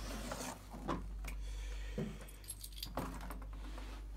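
Small metal toilet-seat fixings (bolts, nuts and hinge parts) clinking and rattling together as they are handled, in a few separate light clicks.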